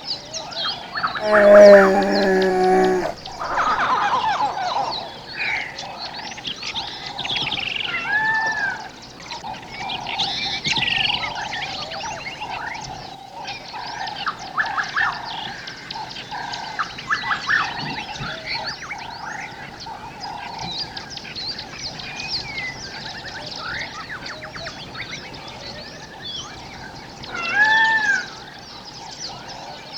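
A dense chorus of wild birds and frogs calling together, many overlapping calls at once. A loud, drawn-out call stands out about two seconds in, and short arched whistled notes recur, the last near the end.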